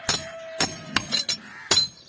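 Hammer striking iron on an anvil in a blacksmith's forging, about five strikes in two seconds, each with a bright metallic ring.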